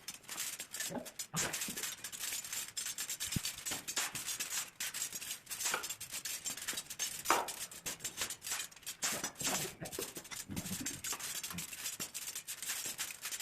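Irregular rasping and scraping of iron being cut, with many short scratchy clicks.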